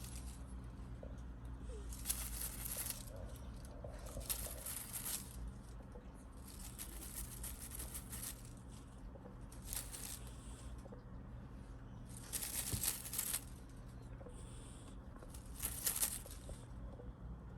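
Kitten playing with a toy: six short bursts of rustling and scratching, a second or so each, over a steady low hum.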